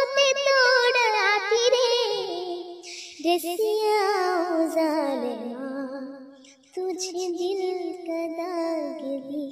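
A young girl singing a Hindi film song unaccompanied, holding long wavering notes with heavy vibrato in a wordless run whose pitch falls. She breaks twice for breath.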